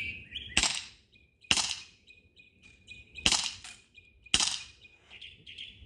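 CZ 75 P-07 non-blowback CO2 airsoft pistol firing four sharp shots: two about a second apart, a pause of nearly two seconds, then two more about a second apart.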